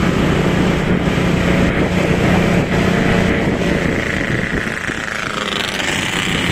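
Bus engine running with a steady low hum and road noise; about four seconds in, a whine rises steeply in pitch.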